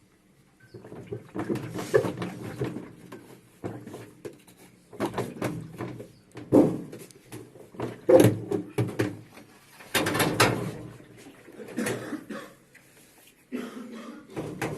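LG washing machine's wash basket being rocked by hand on its drive shaft, clunking and rattling in several bouts. The play comes from a worn spider (basket support), which makes the machine shake hard on the spin cycle.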